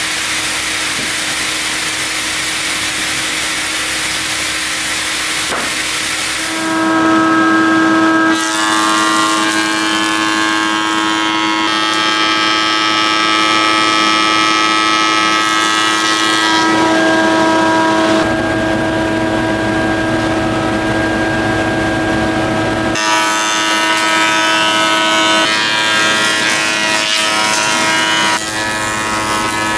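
A sawmill saw cutting a log on its carriage, a steady noise without pitch, until about six seconds in; then a woodworking thickness planer running with a steady pitched whine as wood blocks are fed through, the sound changing several times.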